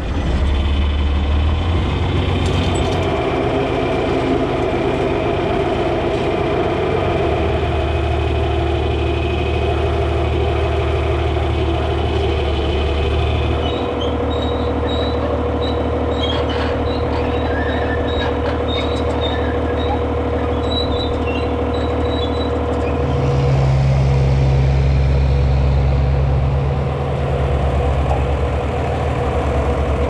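John Deere 4020 tractor engine running, heard from inside its cab. About halfway through, the scene changes to a tractor engine idling while a hand-crank winch clicks steadily as the grain auger is lowered by hand. Later a deeper engine rumble swells louder for a few seconds.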